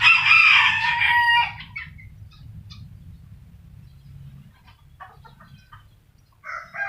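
Black-capped lory giving a loud, harsh call lasting about a second and a half, followed by a few faint chirps and a shorter call near the end.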